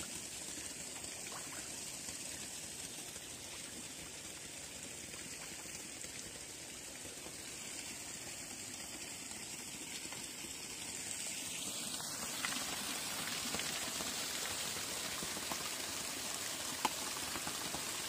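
Water splashing with a steady, rain-like pattering as a crowded school of fish churns the pond surface while feeding. About twelve seconds in it turns louder, into a steady rush of water pouring from a pipe into the pool.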